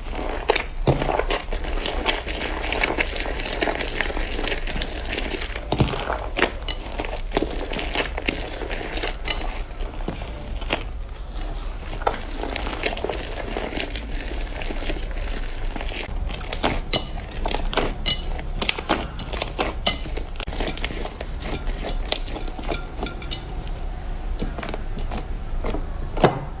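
Slime being squeezed and pressed by hand, making dense, irregular crackling and popping clicks.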